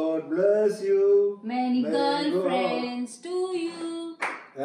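A small group of men and women singing a birthday song together as the cake is cut.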